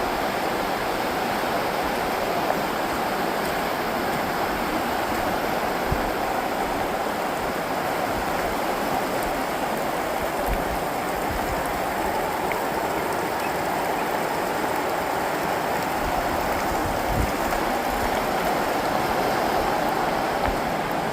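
Rushing creek water running steadily, a full, even rush with no break.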